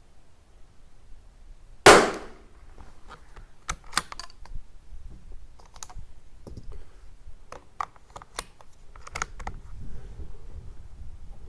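A single shot from a Tikka T1x .22 LR bolt-action rifle firing RWS R50 SC match ammunition, about two seconds in. It is followed by a run of light metallic clicks as the bolt is worked and the next round is handled.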